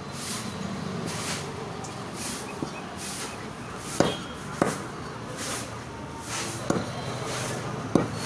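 A butcher's knife chopping raw chicken feet on a wooden chopping block: a few sharp knocks in the second half, over steady shop noise.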